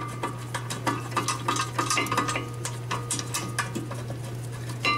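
Rapid small clicks, clinks and scraping of a steel caliper bracket bolt being worked and threaded by hand into a Honda Civic's rear brake caliper bracket.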